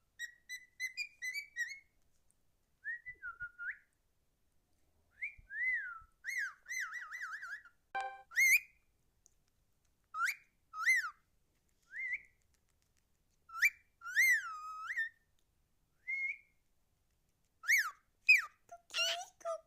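Cockatiel whistling in short phrases of rising and falling whistle notes, with a quick warbling trill a few seconds in and a burst of rapid notes near the end, broken by short pauses.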